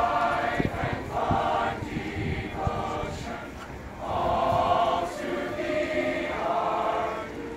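A large group of marching band members singing their university alma mater together in slow, held phrases.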